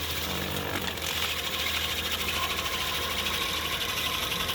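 Skid steer running a hydraulic stump grinder attachment: a steady engine hum under a high whir from the grinding wheel, with a fast, even chatter growing toward the end.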